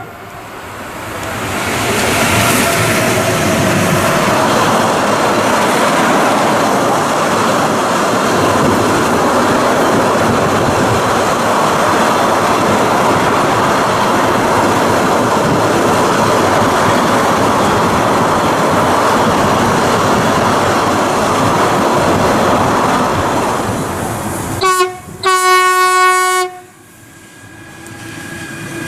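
Freight train rolling past, a steady rush of wheels on the rails. Near the end a locomotive horn sounds for about two seconds, then cuts off suddenly.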